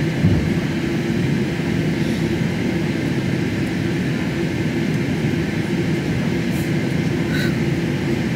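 Cabin noise of a Boeing 747-8 taxiing, heard from inside near the wing: a steady low rumble with a constant hum from the engines at taxi power and the rolling aircraft.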